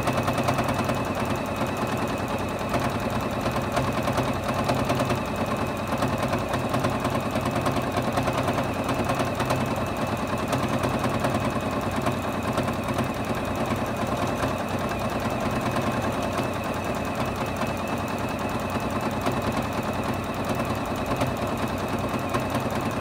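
Juki HZL-F600 domestic sewing machine free motion quilting, stitching steadily with a fast, even rhythm that runs without a pause.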